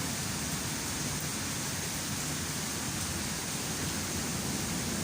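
Heavy thunderstorm rain pouring down steadily, an even wash of noise with no breaks or claps of thunder.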